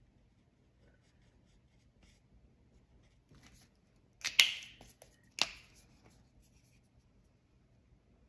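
Faint tapping of an alcohol ink marker's tip on paper, then two sharp plastic clicks about a second apart, the first the loudest, as one marker is put down and another picked up.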